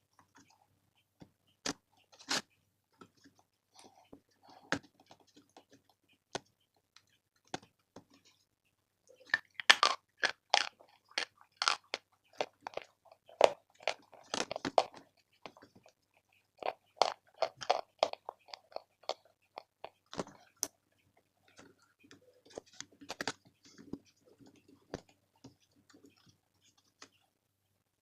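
Big Love chalk being bitten and chewed: a few scattered single crunches at first, then three bouts of dense, crisp crunching from about a third of the way in.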